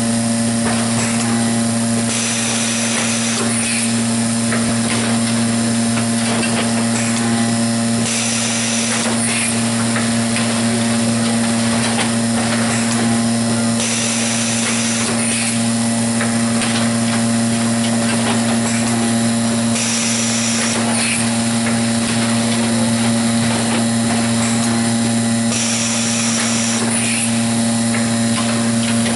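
Hamrick Model 300 case packer with Soft-Set Assembly running, over a steady electrical hum. About every six seconds its pneumatic suction-cup head cycles with a hiss of air lasting a second and a half or so, with light mechanical clicks between.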